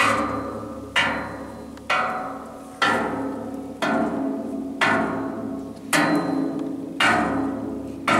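Metal tripod poles struck with a stick about once a second, each blow ringing out with a clear tone and fading before the next.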